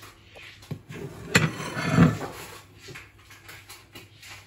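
Dishes being handled: a light click, then a sharp knock about a second and a half in, followed by a short scraping rustle, and quiet handling noise after.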